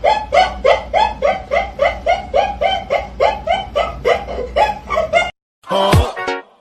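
Rapid, steady laughter, an even 'ha-ha-ha' of about three to four laughs a second that cuts off about five seconds in. Near the end comes a short separate sound whose pitch drops sharply.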